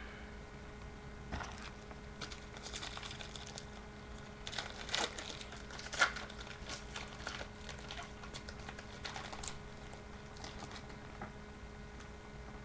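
Baseball trading cards being handled and flipped through one by one: a quick run of small clicks and rustles as the cards slide over each other. It is busiest about five to six seconds in and dies down after about ten seconds.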